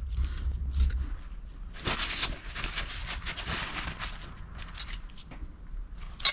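Metal plates of a Ford 8.8 limited-slip differential's clutch pack being pulled apart by hand. Metal slides and scrapes for a couple of seconds, with light clicks and one sharp clink near the end.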